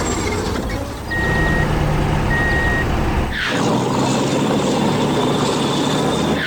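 Heavy truck sound effects: an engine running with two short reversing beeps a little over a second apart. About halfway through there is a burst of hiss like an air brake, and then a louder, rougher machine noise.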